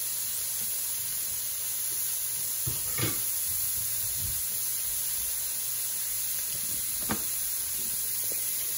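Pork and vegetables stir-frying in oil in a nonstick skillet on high heat: a steady sizzle, with two short knocks about three and seven seconds in.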